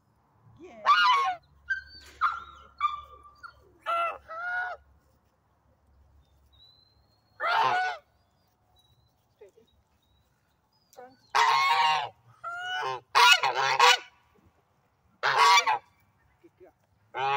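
Domestic white geese honking: loud, short, ringing honks at uneven intervals with quiet gaps between, some in quick runs of two or three.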